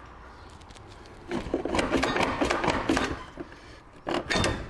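A run of knocks and scrapes, with a louder clunk near the end, as the Ford Transit Connect's gearbox is worked loose and eased down for a clutch replacement.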